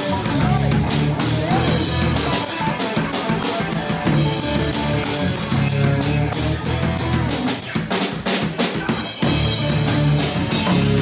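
Live band playing: drum kit with bass drum and rimshots, electric bass guitar and electric guitar together, with a steady drum beat.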